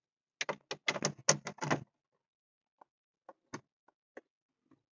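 Hand ratchet wrench clicking as it backs out the radio's mounting bolts: a quick run of about a dozen sharp clicks in the first two seconds, then a few scattered single clicks.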